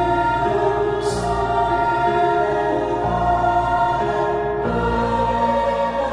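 Background music with held chords and choir-like voices, changing every second or two. There is a brief swell of high, cymbal-like noise about a second in.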